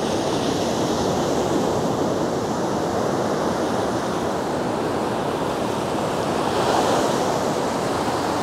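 Ocean surf breaking and washing up a sandy beach: a steady rush of white water that swells slightly about seven seconds in.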